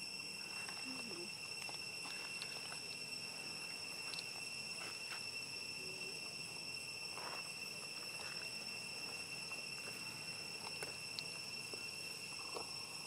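A steady, unbroken high-pitched insect drone, with a few faint scattered clicks and rustles.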